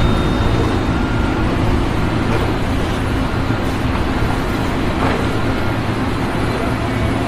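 A large engine running steadily: a deep, even rumble under a wash of mechanical noise.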